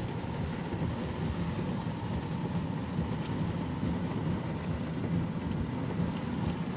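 Steady low drone of a car heard from inside the cabin, with the rain on the car having almost stopped.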